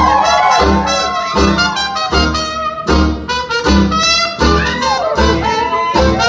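Brassy, jazz-style dance music with a steady beat about twice a second and horn lines that slide up and down in pitch.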